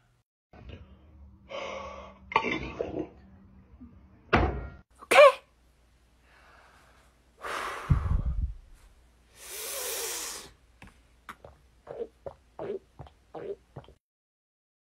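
A man making mouth and breath noises: sharp cough-like bursts and breaths, a low thud, a hiss, then a quick run of short pops, about three a second, near the end.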